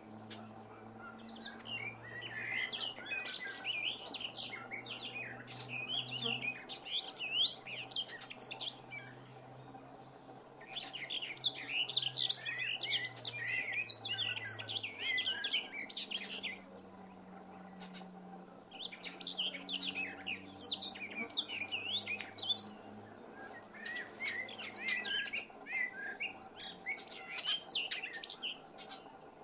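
European goldfinch singing a rapid, tinkling twitter in bursts of a few seconds, alongside a Eurasian blackbird's evening song. A faint low wavering whine of mosquitoes lies beneath.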